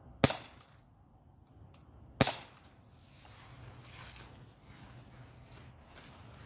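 Umarex Glock 19 Gen 3 CO2 BB pistol firing two shots about two seconds apart, each a sharp pop.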